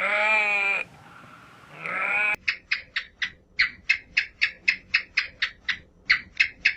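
A bleating farm animal calls twice, each call wavering in pitch. Then the sound cuts abruptly to a rapid run of short, high chirps, about four or five a second.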